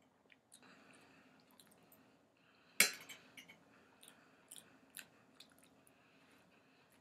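Fork clinking and scraping on a plate, with one sharp clink about three seconds in followed by several lighter taps, and faint chewing.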